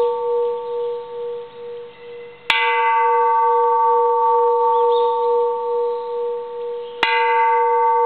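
Bronze Japanese Buddhist temple bell ringing, struck twice with a small striker, about two and a half seconds in and again near the end. Each strike starts with a sharp clang, then several steady tones ring on and waver as they fade. The owner thinks the striker is too light to bring out the bell's full sound.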